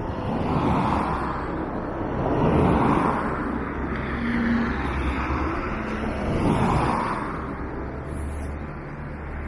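Road traffic: vehicles passing on the street close by, their tyre and engine noise swelling and fading three times, loudest about a second in, around three seconds in and near seven seconds in.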